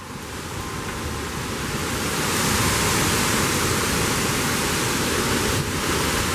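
Violent thunderstorm winds rushing in a steady, loud roar of noise that builds about two seconds in and then holds.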